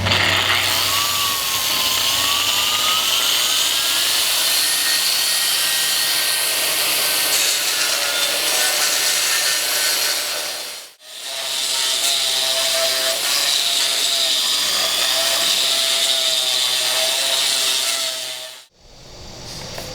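AGP SM5 concrete grinder, its 2,200 W motor driving a 125 mm diamond cup wheel, grinding concrete: a loud steady grinding rasp over a motor whine that rises in pitch over the first few seconds. The sound breaks off abruptly about halfway through, resumes, and breaks off again near the end.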